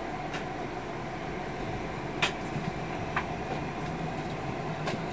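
Steady hum of a jet airliner's cabin air conditioning, with a few sharp clicks from inside the cabin, the loudest about two seconds in.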